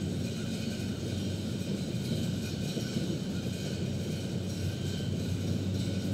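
Steady low outdoor rumble with no change and no distinct events, with faint steady high tones above it.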